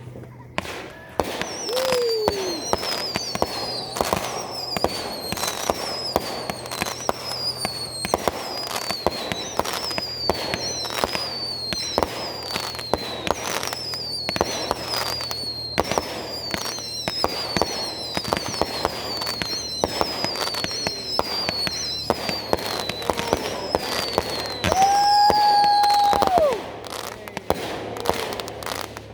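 Consumer fireworks firing in a rapid barrage: many sharp bangs and crackles, with shot after shot trailing a high falling whistle about once a second. Near the end a steady whistling tone sounds for about a second and a half, the loudest part.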